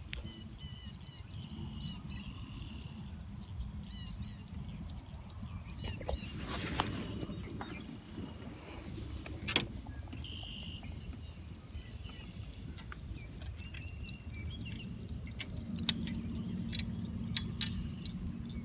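Birds chirping now and then over a steady low rumble, with scattered small clicks and rattles that come more often near the end.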